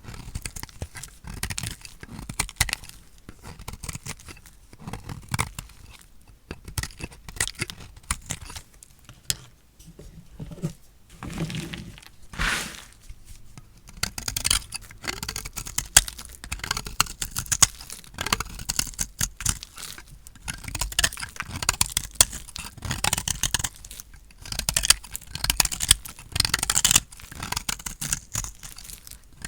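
A knife cutting through dry, painted bar soap: a dense, irregular crunch and crackle as the hard soap splits and flakes. The crackling gets denser and louder about halfway through.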